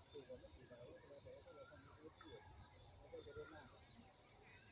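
Crickets chirping in a faint, steady, fast-pulsing high trill.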